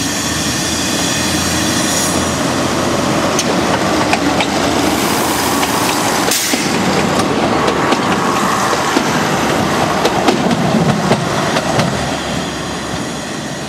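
Narrow-gauge diesel railcar of the Pinzgauer Lokalbahn passing close by, its engine running, with wheels clicking over the rail joints.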